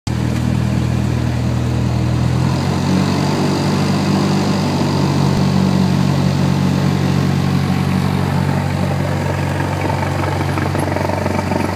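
Cessna 172's single piston engine and propeller running steadily on the ground, heard from inside the cabin as a loud, even, low drone.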